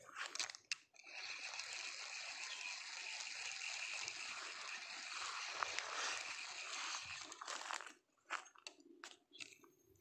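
Ajiking Wahoo Mini 800 spinning reel being cranked to retrieve a cast lure: a few clicks, then a steady whirring for about seven seconds that stops abruptly.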